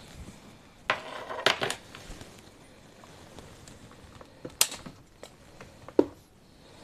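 Light handling noise: scattered small clicks, rustles and scrapes, with sharper taps about a second and a half in, near the middle and about six seconds in.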